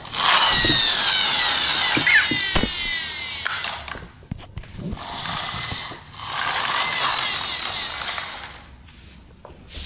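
Hard plastic wheels of a toy excavator truck rolling and rattling across a ceramic tile floor as it is pushed and let go, three times. Each run is a whirring rumble; the first falls in pitch as the toy slows.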